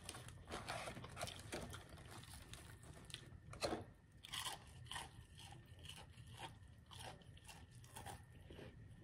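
Close-miked crunching and chewing of Popeyes fried chicken, a run of irregular faint crunches.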